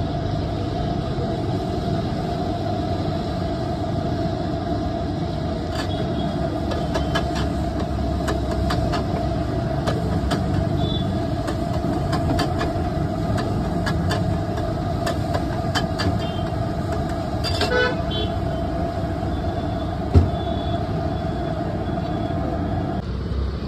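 A steel spatula scraping and tapping on a large flat pav bhaji griddle, in quick strikes through the middle of the stretch. Under it is a steady roar with a continuous whine that cuts off near the end.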